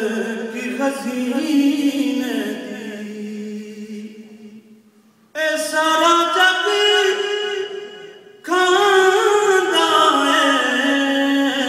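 A man singing a naat unaccompanied into a microphone, in long drawn-out, wavering phrases, with brief pauses for breath about five and eight seconds in.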